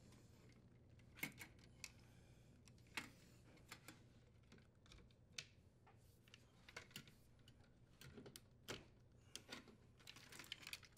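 Faint, irregular plastic clicks and light rattles of wire-harness connectors being worked loose and unplugged from a dishwasher's main control board, some in quick pairs.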